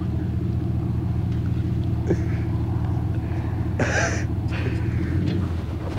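An engine idling steadily with a low, even rumble, and a brief shout about four seconds in.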